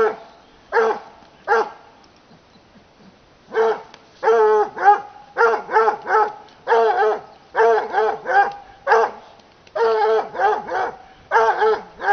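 Bluetick coonhounds barking in quick runs of three or four barks, with a break of about two seconds near the start: hunting dogs baying at a wild boar that they hold at bay.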